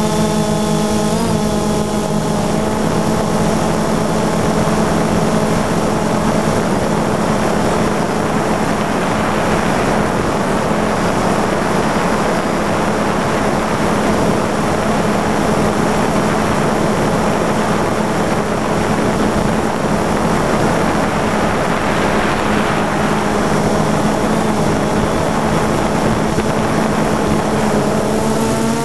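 DJI Phantom 2 quadcopter's motors and propellers running in flight, heard close up through the camera it carries: a steady rushing of propeller wash over a low hum. A whine of several pitches is clear at first, fades within about two seconds, and comes back near the end.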